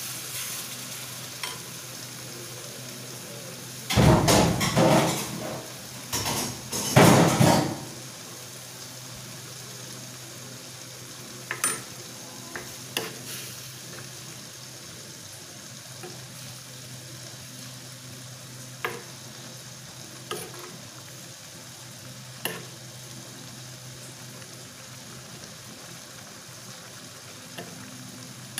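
Chicken gizzards bubbling and sizzling in their spiced liquid in an earthenware pot on a gas stove as the liquid cooks down, a steady hiss with a steel spoon stirring and tapping against the pot now and then. A run of loud knocks and clatters of the metal pots about four to eight seconds in.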